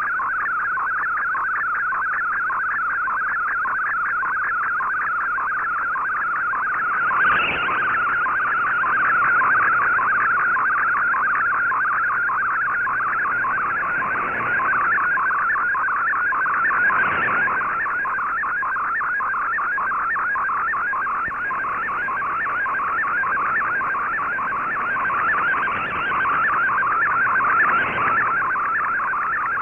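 Shortwave receiver audio of an MFSK digital picture transmission: a rapidly warbling data tone that runs without a break while the image is sent line by line. A few short crackles of static come through, about a quarter, halfway and near the end.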